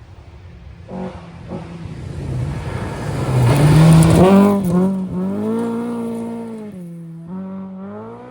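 Historic rally car approaching at speed and passing, loudest about four seconds in. Its engine note drops and climbs again at gear changes as it drives away.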